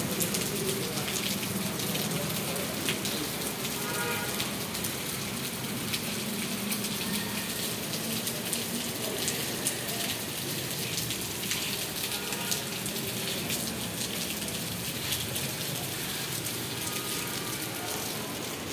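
Heavy rain pouring onto a paved courtyard and trees: a steady hiss with many sharp taps of drops.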